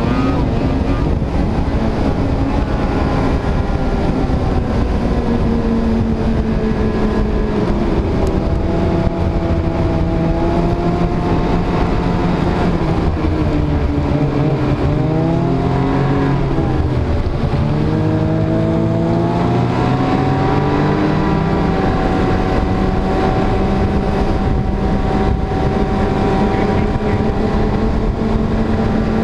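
Snowmobile engine running as the sled travels along the trail, with a steady engine note over a rough rushing noise. About halfway through the engine note drops as it slows, then climbs again as it speeds back up.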